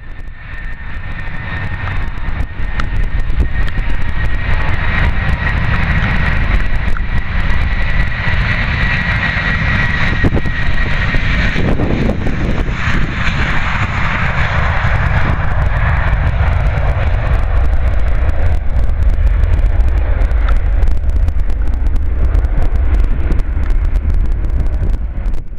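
Airbus A320's twin jet engines at take-off power during the take-off roll: a loud, steady roar with a high whine over it for about the first ten seconds. The roar swells as the jet passes, about halfway through.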